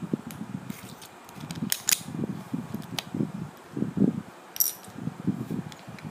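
LEGO pieces being handled and pressed together: fingers rubbing and tapping on the plastic, with a few sharp clicks as tiles are pressed onto a studded plate, the clearest about two seconds in and again partway past four seconds.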